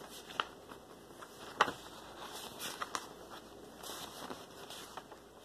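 A few scattered small clicks and taps, the sharpest about a second and a half in.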